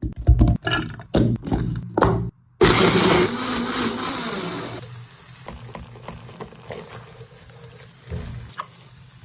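A few seconds of choppy knocking and clatter, then, after a short break, a kitchen blender running, loud at first and settling quieter.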